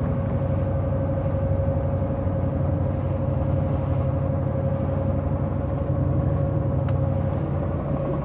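A fishing boat's engine running steadily under way: a constant low drone with a steady higher hum over it.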